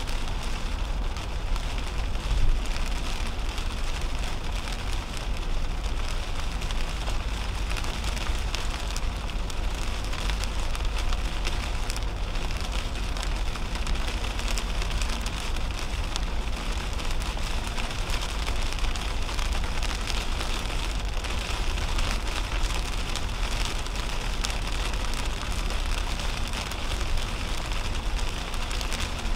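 Heavy rain hitting the windshield and roof, heard from inside the cabin of a 2010 Toyota Camry at highway speed, over a steady low rumble of tyres on wet pavement.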